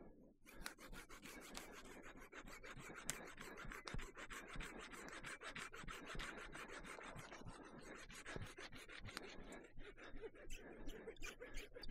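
Handsaw cutting through wood in quick, steady back-and-forth strokes, rasping without a pause; it starts about half a second in.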